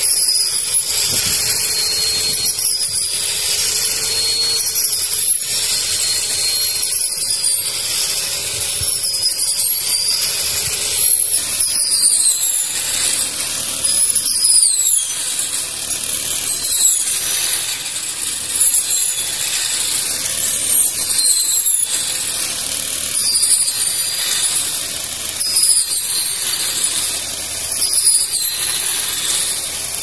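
Petrol brush cutter cutting ripe rice stalks, its small engine running continuously with a high whine that rises and falls again and again as the throttle is worked.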